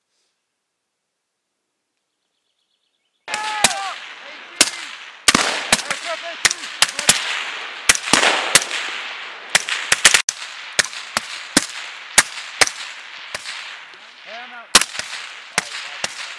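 Several suppressed rifles firing, irregular single shots from more than one shooter at a few per second, each a sharp crack with a ringing echo tail. The shooting starts abruptly after about three seconds of silence.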